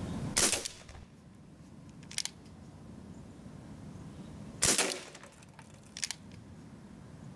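Umarex Brodax CO2 BB revolver fired twice, a few seconds apart, each shot a sharp pop. A fainter short double tick follows each shot a second or two later.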